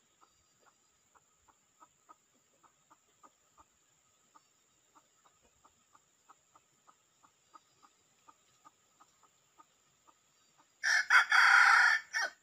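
Junglefowl rooster giving a steady run of faint, short clucks, about three a second, then one loud crow lasting about a second and a half near the end.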